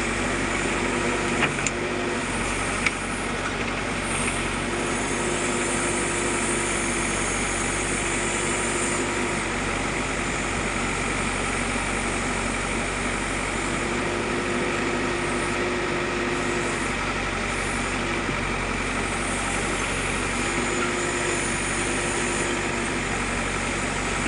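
JCB 3DX backhoe loader's diesel engine running steadily at work. A steady tone rises over it and drops away several times. There are two short knocks about two and three seconds in.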